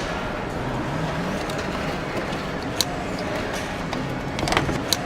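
Assembly-line machinery noise, steady, with two sharp metallic clicks, one a little before the middle and one near the end.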